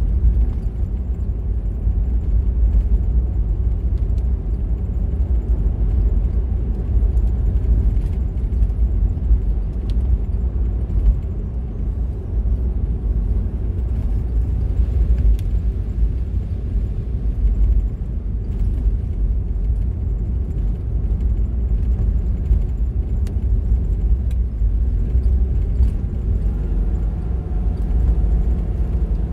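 A car driving along a road: a steady low rumble of engine and road noise. A faint engine note comes through near the end.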